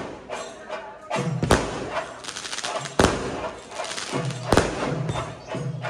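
Festival fireworks display: aerial shells going off in four sharp bangs about a second and a half apart, with a run of quick crackling between the second and third.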